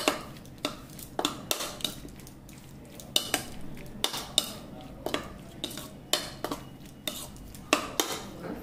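A spoon stirring a sandwich stuffing of chopped onion, tomato and mayonnaise in a bowl, clinking against the bowl about twice a second at an uneven pace.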